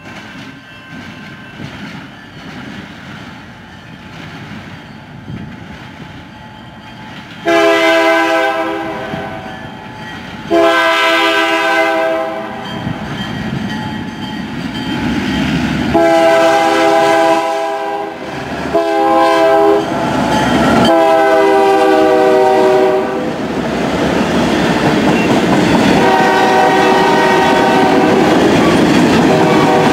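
Diesel freight locomotive approaching with a low rumble, then its multi-chime air horn sounds six blasts at a grade crossing, some long and some short. In the second half the train rolls past, its wheels clacking over the rail joints under the horn.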